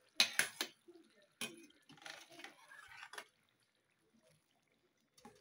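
Metal spoon clinking and scraping against a metal pot while stirring thick tomato fish stew: three quick clinks near the start, another about a second and a half in, softer scraping and one more clink around three seconds.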